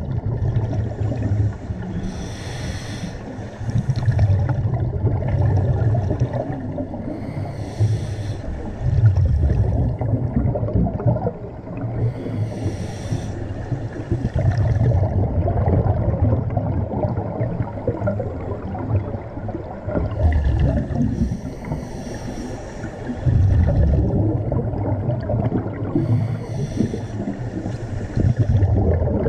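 Scuba diver breathing through a regulator underwater: a short hissing inhale about every five to six seconds, each followed by a longer low rumble of exhaled bubbles.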